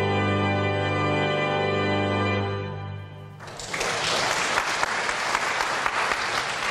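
Organ music holding a final sustained chord that fades out about three seconds in, followed by applause.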